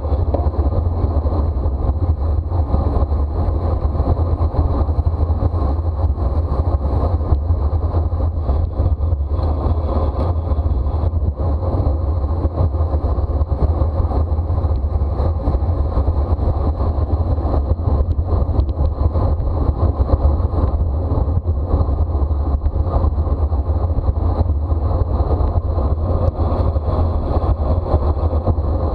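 Steady rushing wind on the microphone of a camera riding on a racing bicycle, with tyre and drivetrain noise underneath: a deep, unbroken rumble that never lets up.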